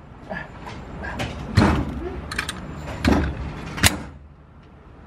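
A string of sharp knocks and clacks at a pistol range, the three loudest about a second and a half, three and nearly four seconds in.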